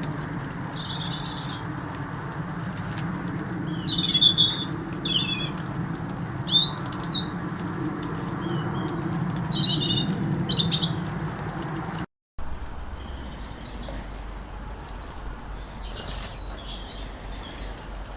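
Small garden birds chirping and twittering in short, high calls, busiest in the first eleven seconds, over a steady low rumble. The sound cuts briefly about twelve seconds in, and fainter chirps follow.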